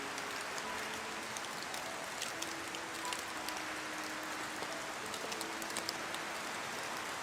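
Steady rain hissing, with individual drops ticking sharply here and there, and soft held notes of background music faintly beneath.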